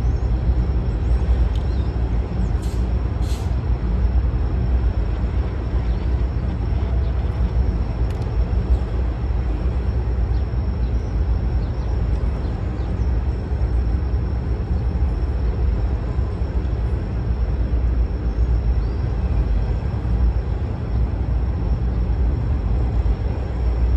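Norfolk Southern covered hopper cars of a grain train rolling past on the rails: a steady, even rumble of steel wheels with a faint steady high whine over it and a few light clicks about three seconds in.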